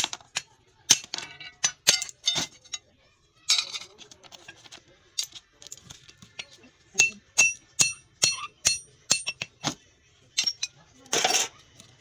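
Metal tools striking and working at a washing machine motor to get its copper winding out: irregular sharp metallic clinks and knocks, some ringing briefly, with a couple of short scraping bursts.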